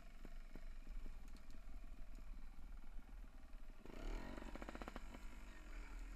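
Bike rattling and knocking as it descends a rough dirt trail, with low rumble from the ride. About four seconds in there is a rapid, even ticking that lasts about a second.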